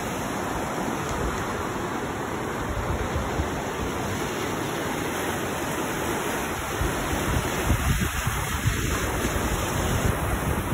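Glacial river rushing through a narrow rock canyon, a steady wash of white water. From about two-thirds of the way in, irregular gusts of wind buffet the microphone with low thumps.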